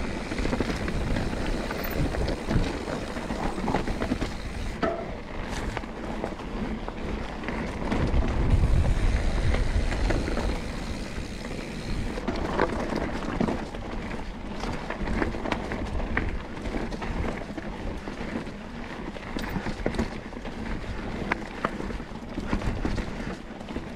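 Mountain bike rolling down a rough dirt trail: tyres crunching over stones and the bike rattling, with wind on the microphone. A louder rumbling stretch comes a third of the way in.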